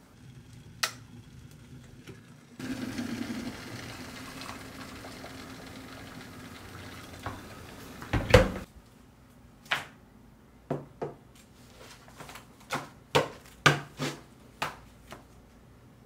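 Hot water running from an electric kettle into a glass cup for about five seconds, followed by one heavy knock. After that comes a string of short, sharp taps and clicks.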